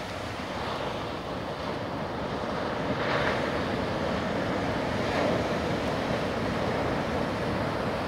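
Sea surf: waves breaking and washing in a continuous rushing noise, swelling a little about three seconds in.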